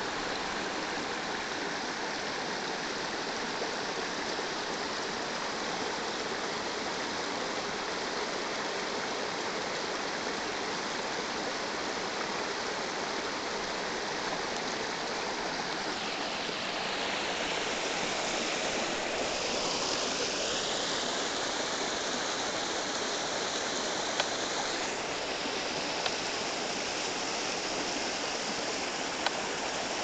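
Small stream of water splashing down over rocks in a steady rush. About halfway through the rush grows brighter and a little louder for several seconds, then settles back, with a few faint clicks near the end.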